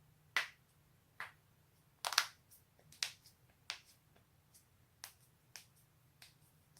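Human joints being cracked: a string of about ten short, sharp pops at uneven intervals, the loudest a quick double pop about two seconds in.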